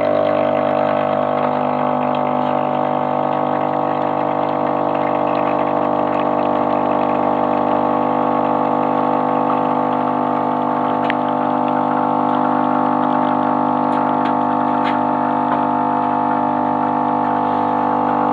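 Krups automatic espresso machine brewing: its pump cuts in suddenly and keeps up a steady buzzing hum as coffee streams from the twin spouts.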